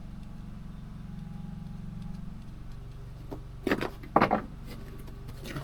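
An engine running steadily with a low hum, with two short knocks a little past halfway.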